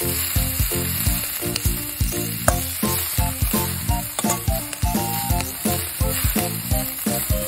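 Bean sprouts sizzling as they are stir-fried with a spoon in an iron pan over a wood fire, with background music playing to a steady beat.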